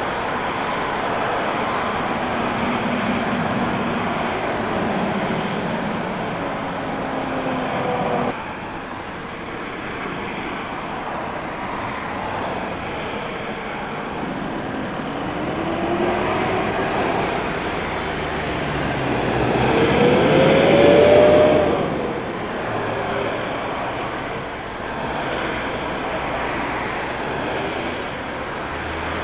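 Jet airliner engines on the runway, a steady roar with a turbine whine. The sound changes abruptly about eight seconds in. Later a whine rising in pitch swells to the loudest point, about three-quarters of the way through, then falls off.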